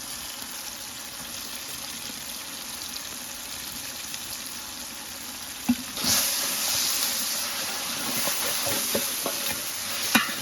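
Onion-tomato masala frying in oil in a cooking pot: a steady sizzle that turns louder and brighter about six seconds in, just after a single knock, with stirring.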